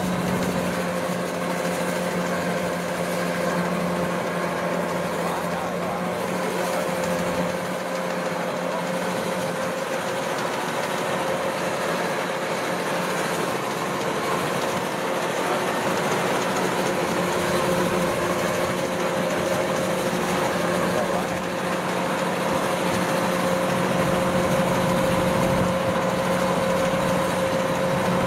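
Kubota crawler combine harvester running steadily while it cuts and threshes rice: an even engine drone with a constant whine over it.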